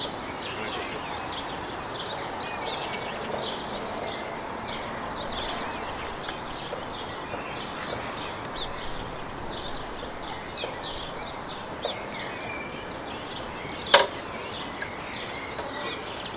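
Small birds chirping and singing throughout over a steady outdoor hiss, with one sharp knock about fourteen seconds in, the loudest sound.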